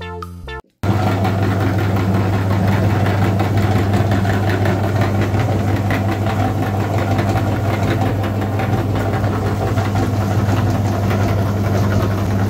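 A belt-driven electric meat grinder running with a steady low hum. It cuts in abruptly about a second in, after a short bit of music.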